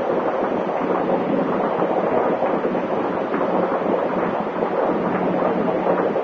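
Steady rush of strong test wind driving a small DyoCore SolAir wind turbine, its blades spinning, with a steady low hum under the noise.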